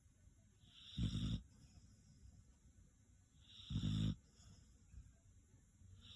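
A dog snoring: two low, rattling snores about two and a half seconds apart, each opening with a breathy hiss, and a third just beginning at the end.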